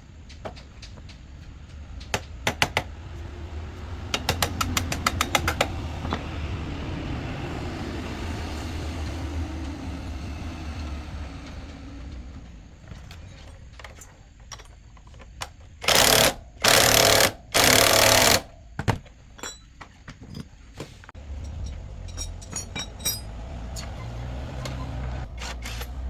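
Workshop tool noise: scattered clicks and a quick run of clicks over a low steady hum, then three loud bursts of hissing noise, each about half a second to a second long, about two-thirds of the way through.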